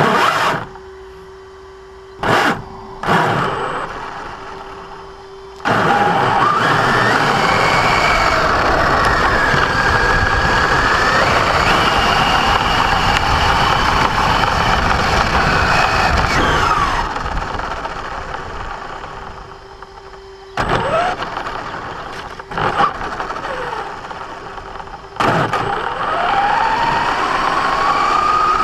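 Electric 1/10 RC 4x4 truck's motor and gear drivetrain whining and grinding in repeated bursts of throttle. The longest burst runs from about six to seventeen seconds in, and a rising whine comes near the end. The grinding comes only under acceleration, on a new truck whose gear mesh has already been adjusted, so the cause is still unknown to the owner.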